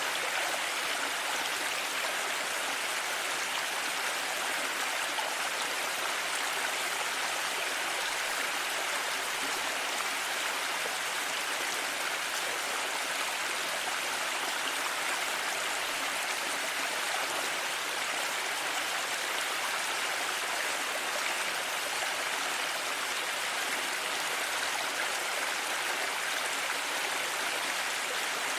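A mountain stream running: a steady, even rush of flowing water.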